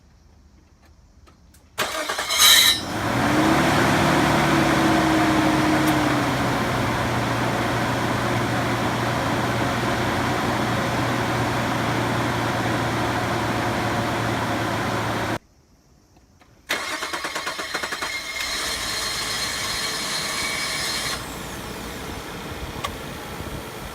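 Nissan Stagea (C34) cold start: the starter cranks with an abnormal noise for under a second before the engine catches and runs at a steady fast idle. About two-thirds of the way through the engine cuts out for about a second, and a second start with the same brief noise follows. The noise persisted after the starter, alternator, ring gear, belt and pulleys were replaced; the owner traced it to a partly broken positive battery cable.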